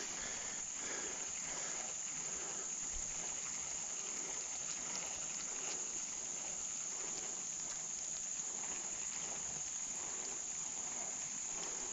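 Insects trilling in one steady, high, unbroken tone, a constant chorus with no pauses.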